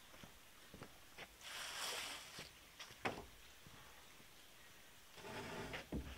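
Faint knocks and scraping of wooden boards being handled against a timber frame, with a longer rasping slide about two seconds in and a sharp wooden knock about three seconds in.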